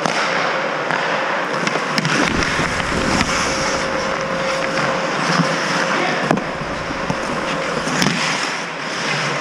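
Ice hockey skates scraping and carving on the ice, heard close up from a player's helmet, with a few sharp clacks of sticks and puck and a faint steady hum underneath.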